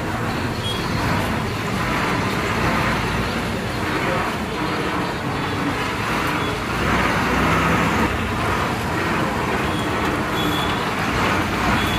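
Road traffic heard from a moving vehicle: steady engine and tyre noise, with a few faint short high beeps now and then.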